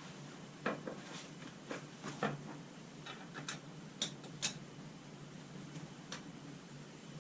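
Irregular light clicks and taps of hand tools and small hard parts being handled while working on a battery pack.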